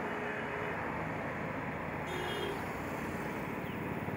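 Steady rumble of road traffic, with the low pulsing of a vehicle engine becoming clearer in the second half.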